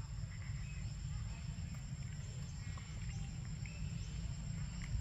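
Outdoor forest ambience: a steady low rumble with faint, short high chirps scattered through it.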